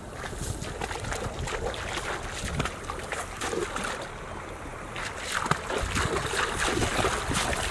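Footsteps splashing through shallow running water, one stride after another, with wind rumbling on the microphone.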